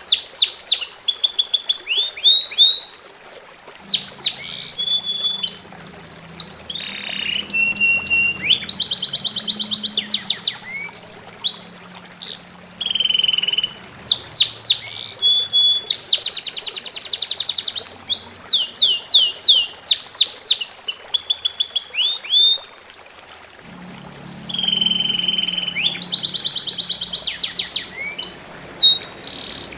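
A songbird singing loudly and continuously in fast, varied phrases of whistled notes, trills and rapid repeated chips, with two short pauses.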